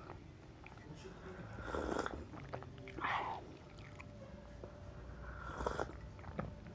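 Close-miked eating: chewing street food, with three louder bites or mouth noises about two, three and five and a half seconds in.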